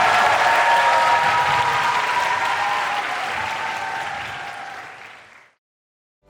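Audience applauding and cheering at the end of a song, fading out about five and a half seconds in.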